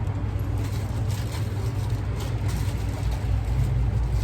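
Steady low background rumble, like road traffic, with a few faint light clicks over it.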